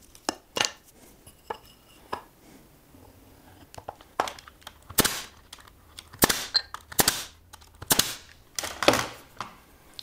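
Pneumatic brad nailer driving brads through small wooden rails into a board, about six sharp shots roughly a second apart in the second half. A few lighter knocks of wood come before them.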